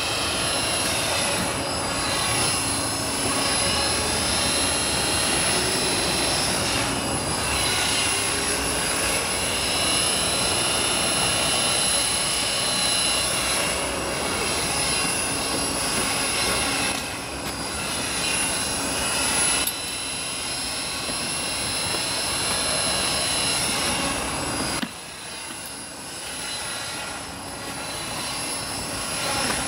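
Radio-controlled helicopter turning slow pirouettes in a low hover. The rotor and motor whine rise and fall in pitch as it turns, over a high steady whine. About 25 seconds in, the sound drops suddenly and becomes quieter.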